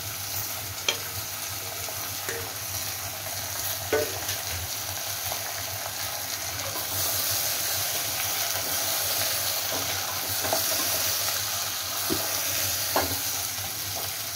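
Chopped radish and bottle gourd sizzling in hot mustard oil in an aluminium pressure cooker, stirred with a wooden spatula that knocks against the pot a few times. The sizzle grows a little louder about seven seconds in.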